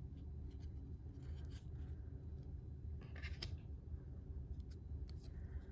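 Trading cards sliding and rubbing against each other as a stack is flipped through by hand: faint scrapes and flicks, a small cluster about three seconds in, over a steady low hum.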